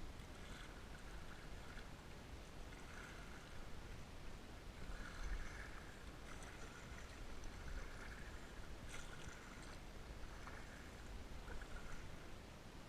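Kayak paddle dipping and splashing in water, a soft stroke every second or so, over a steady low rumble.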